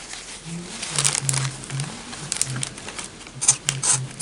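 Scissors cutting through thick seat belt webbing: a series of short crunchy snips, several in pairs, as blunt blades chew through the woven strap.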